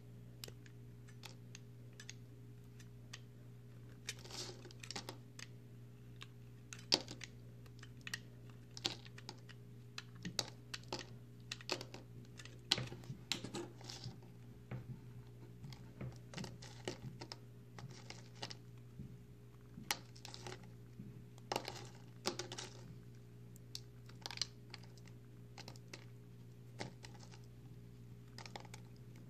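Dry, crumbly recycled soap being cut with a utility knife and crumbled between the fingers: irregular crisp crunches and crackles, with a low steady hum beneath.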